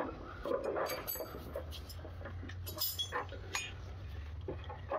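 Hand tools clinking and tapping on metal in a few scattered sharp ticks, with a low steady hum underneath.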